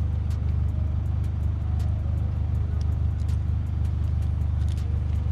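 A car engine idling: a steady low drone with a few faint ticks over it.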